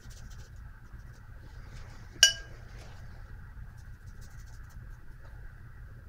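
A single short, ringing clink about two seconds in, over a faint steady hum.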